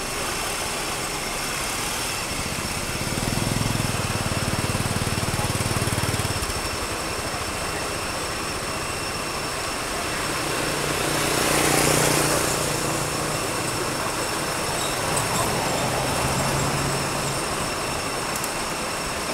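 Steady outdoor background noise with a low engine hum that comes and goes. The hum swells a few seconds in and again past the middle, where a rush of noise rises and falls, as of a motor vehicle running and passing.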